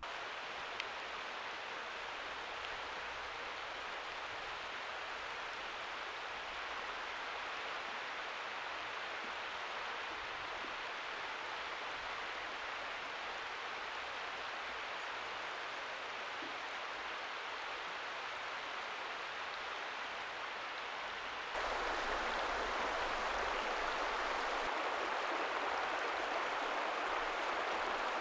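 Shallow, stony mountain river running under a footbridge: a steady rush of water, louder from about three quarters of the way through.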